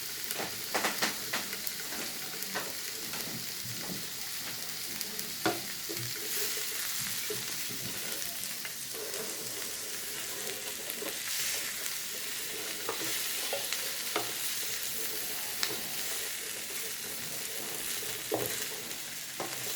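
Broccoli florets and yellow squash sizzling in a hot pan with garlic as they are stirred and tossed to coat. A utensil knocks and scrapes against the pan now and then.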